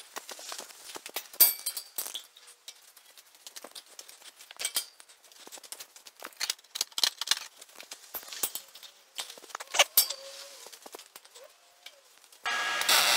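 Steel square tubing and metal clamps clinking and knocking as a crossbeam is set in place and clamped on a welded steel frame, in many short sharp strikes. Near the end a loud steady machine noise starts abruptly.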